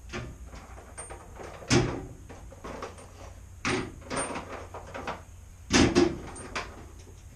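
A series of knocks and clunks from things being handled and moved about, one every second or two. The loudest come about two seconds in and again near six seconds.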